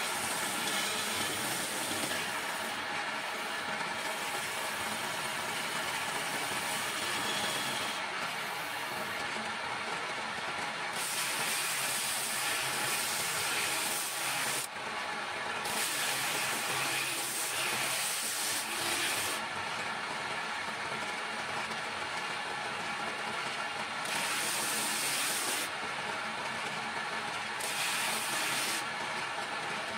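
Electric motor of a homemade wood lathe running steadily, spinning a wooden blank. Over it come repeated hissing stretches of one to four seconds: a gouge cutting into the turning wood near the start, and later a steel tool being ground on a grinder.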